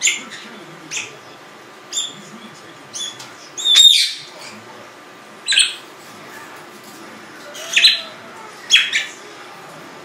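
Congo African grey parrot giving a string of about eight short, sharp high-pitched calls, about one a second at first, then more spaced out. The loudest and longest call comes about four seconds in.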